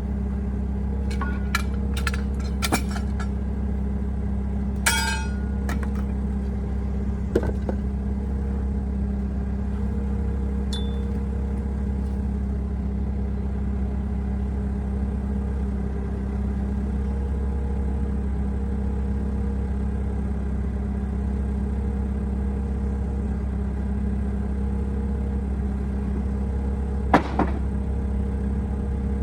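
Engine idling steadily throughout, with a few sharp metallic clinks and knocks from metal parts, several in the first few seconds and one near the end.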